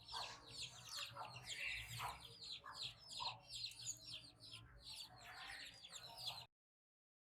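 Many small birds chirping in quick, overlapping falling notes, with a few lower calls mixed in. The sound cuts off abruptly about six and a half seconds in.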